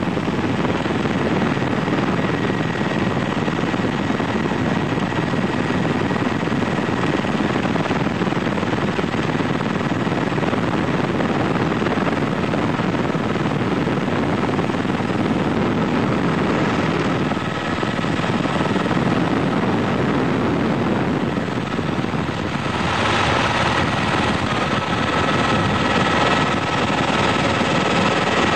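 Helicopter heard from on board: a steady, dense drone of rotor and engine noise with a faint high whine, which grows stronger and brighter about 23 seconds in.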